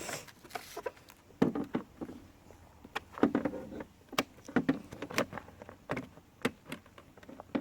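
Irregular plastic clicks and knocks as a pool robot's leaf filter container is handled and opened.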